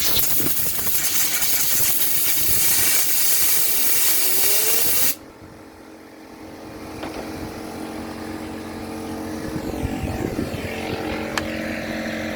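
Compressed air hissing loudly and steadily as it is blown through a chainsaw, cutting off abruptly about five seconds in. After it, a steady motor hum slowly grows louder.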